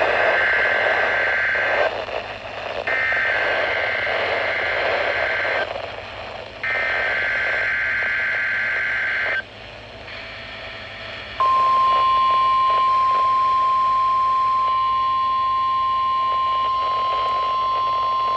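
NOAA Weather Radio Required Weekly Test received over a weather radio: three bursts of SAME digital header data, a rapid two-pitch warbling screech each lasting about three seconds with short hissy gaps between, then the steady single-pitched warning alarm tone starting about eleven seconds in. Radio hiss runs underneath.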